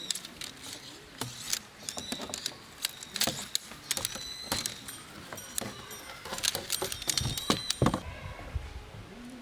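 Light clicks and metallic clinks of camping gear being handled, with short ringing high tones among them. The clatter stops near the end.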